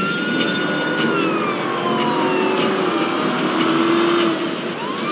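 Police car siren wailing in a slow sweep, rising, holding and falling, then starting to rise again near the end, over the patrol car's road noise while driving.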